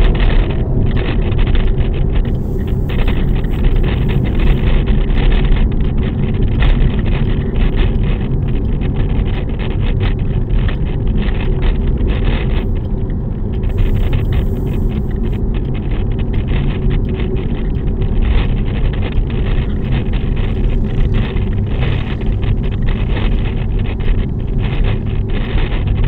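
Inside the cabin of a moving 2023 Suzuki Dezire with a manual gearbox, a steady low drone of road and engine noise is heard, with the engine itself barely audible. Frequent light rattling and clicking sounds over it: a phone camera rattling against the dashboard, and a rosary hung on the dash knocking on the dash cam.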